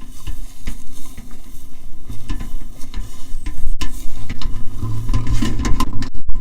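Kite reel resonator sounding as the kite line pulls on it: scratchy crackling and irregular clicks over a low rumble, with a low hum swelling in the second half.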